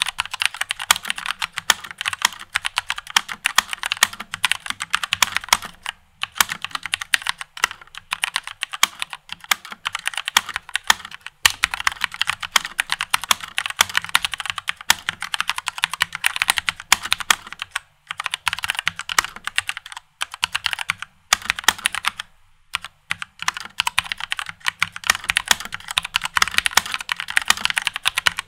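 Typing on a Rexus Legionare MX5.1 mechanical keyboard with linear, non-clicky red switches: a fast, dense clatter of keystrokes in long runs, broken by short pauses every few seconds.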